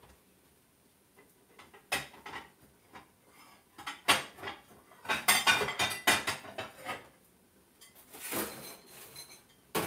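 Dishes and cutlery clinking and clattering: a single knock about two seconds in, then a run of quick clinks and knocks, busiest in the middle and again near the end.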